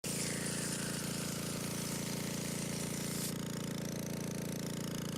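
A motor running steadily at a constant pitch, cutting in suddenly, with a high hiss over it that drops away about three seconds in.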